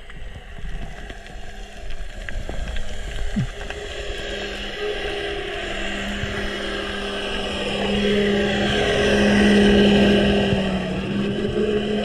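Motorboat engine and propeller heard underwater: a steady, pitched roar that comes in about four seconds in and grows louder as the boat closes in. It is loudest around nine to ten seconds in as the boat passes directly overhead, then begins to fade.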